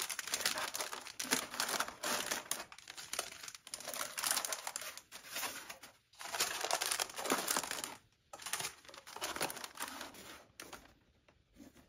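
Face-mask packets crinkling and rustling as they are slotted by hand into a stiff paper drink carrier, the packets brushing against the cardboard. The rustling goes in a run of short bursts and thins out near the end.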